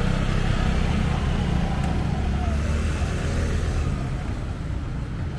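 Street traffic: a motor vehicle running close by, over a steady low rumble.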